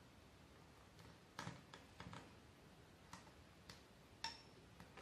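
Faint, scattered light ticks of thread being pulled and wound around the small nails of a string art board, about six over a few seconds. The loudest, about four seconds in, has a brief ring.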